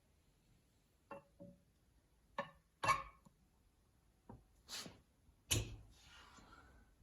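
Hydraulic cylinder parts and tools being handled on a workbench: a run of separate knocks and clinks, two short ringing clinks about a second in and the loudest knocks near three seconds and five and a half seconds in, followed by a soft rustle.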